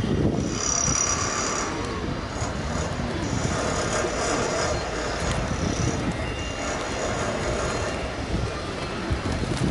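A high, steady squeal comes and goes three times over a low, continuous rumble of street noise.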